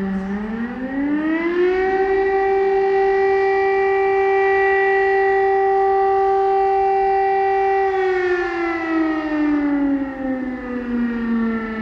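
Civil defense warning siren sounding: its tone climbs over about two seconds, holds steady for about six seconds, then slowly falls back to its low pitch near the end.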